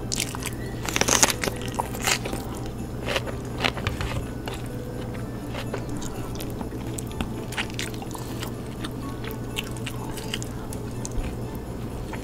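Eating by hand from steel plates: fingers mixing rice and chicken curry, with crunching bites and chewing. The sharpest crunches come a little after a second in, over a steady low hum and background music.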